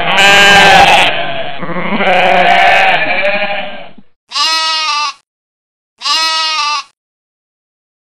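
Sheep bleating: several overlapping wavering bleats for about four seconds, then two shorter single bleats, each under a second.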